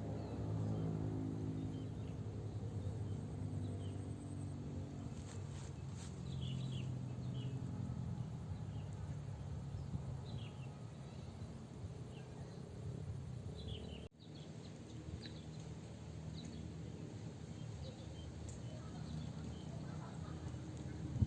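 Birds giving short, scattered chirps over a low droning hum of several held tones, which fades after the middle; the sound drops out suddenly once, about two-thirds of the way through.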